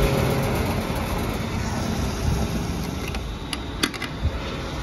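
Petrol pump dispensing fuel through the nozzle into a car's filler neck: a steady rush of flowing fuel over a low pump hum, with a couple of short clicks near the end.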